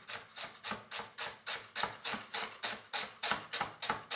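Chef's knife dicing an onion on a wooden cutting board: a steady run of quick crisp cuts, about four a second, each slicing through the onion and tapping the board.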